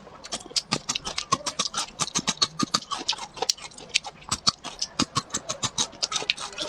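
Close-miked eating sounds: chewing with wet mouth clicks and smacks, a rapid irregular run of several crisp clicks a second.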